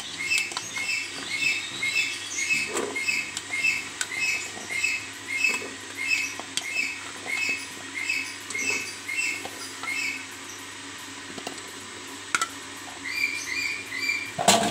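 A series of short, high chirps, about two a second, that stop about ten seconds in and start again near the end. A few knocks against the stainless-steel steamer come through as potato chunks and a spatula hit it, the loudest near the end.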